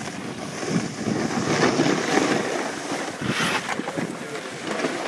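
Snowboard sliding and scraping over packed snow, an uneven rushing hiss, with wind buffeting the microphone.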